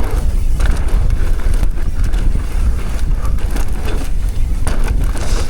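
Heavy wind noise on the microphone as a downhill mountain bike descends a dirt trail at speed, with scattered short knocks and rattles from the bike over the bumps.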